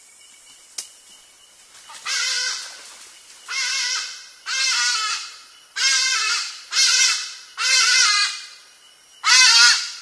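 Hadada ibis calling: seven loud, harsh, nasal cries in about eight seconds, starting about two seconds in, the last the loudest.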